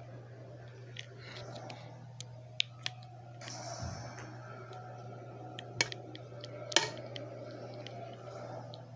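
Scattered sharp clicks and light knocks, a few of them distinct, over a steady low hum.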